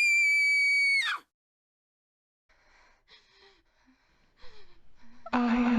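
A loud, high-pitched shriek held at one pitch for about a second, cutting off sharply, followed by faint breathy gasps.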